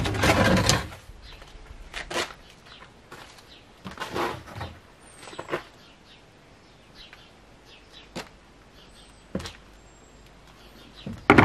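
Corrugated plastic sheets and their timber frames being handled as a small shed's roof and side panel are lifted off. A rattling clatter comes in the first second, then scattered knocks and bumps of wood and plastic, with a sharp knock near the end. Faint bird chirps.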